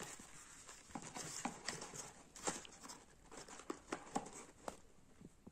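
Faint scattered clicks, taps and soft rustles of a small paperboard product box being handled and opened.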